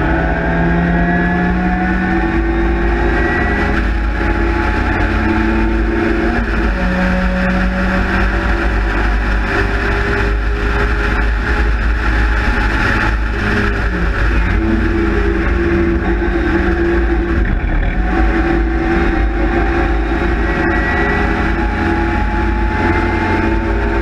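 Onboard sound of a Sprite/Midget race car's four-cylinder engine running hard, the note climbing in pitch and stepping back down at gear changes, over a steady rush of wind through the open cockpit.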